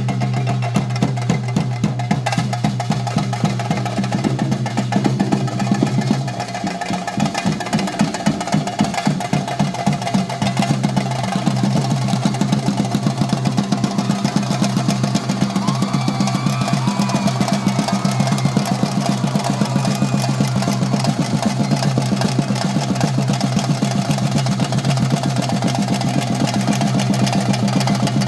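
Theyyam chenda drums beaten in a fast, continuous roll over a steady low hum.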